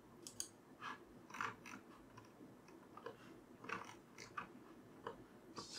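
Faint, irregular clicks from a computer mouse, heard about ten times at uneven intervals as the 3D view is dragged and rotated, over low room hiss.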